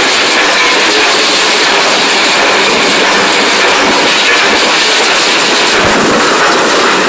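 Bucket chain dredger at work: its chain of steel buckets and machinery making a loud, steady mechanical noise that does not let up.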